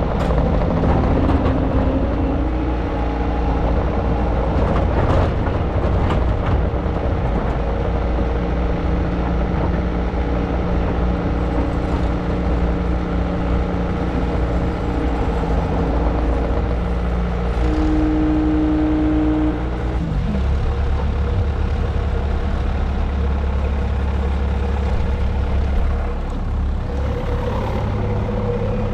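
Diesel skid steer engine running under steady load while powering a hydraulic firewood processor. Held hydraulic whines come and go, with a strong one about two-thirds through that ends in a falling pitch, and a few faint knocks.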